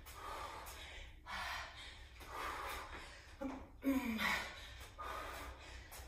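A woman breathing hard through a kettlebell squat drill, with loud breaths about once a second. A short voiced exhale falling in pitch comes a little past the middle.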